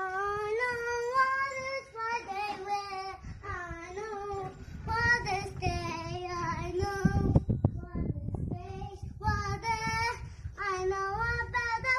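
A high voice singing a melody in phrases of held, wavering notes. A burst of low-pitched noise comes about seven seconds in.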